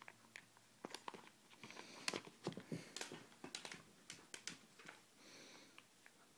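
Puppy playing with a tennis ball in her mouth on carpet: a quiet scatter of soft taps and clicks from her paws and from her mouthing the ball, thickest in the middle.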